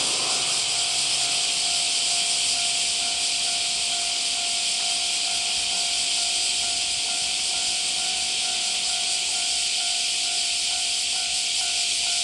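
Japanese level-crossing warning bell ringing steadily in an even repeating pattern, over a loud, steady high hiss.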